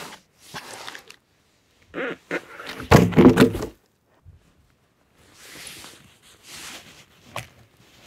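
A heavy thunk about three seconds in, among softer knocks, then scuffing and a sharp click near the end.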